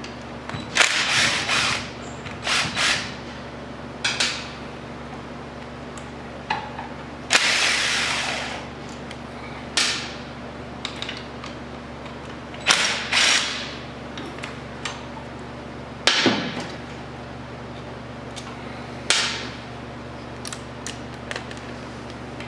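Cordless DeWalt impact driver hammering out the water pump cover bolts on a Polaris Sportsman engine, in short bursts about eight times, each about a second long.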